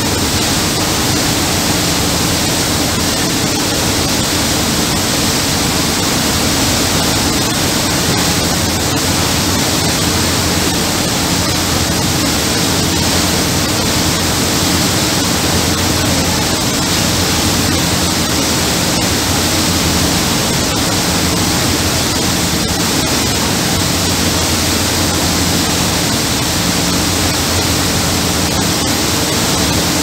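Loud, steady rushing of a boat's churning wake and propeller wash, with a low engine drone underneath.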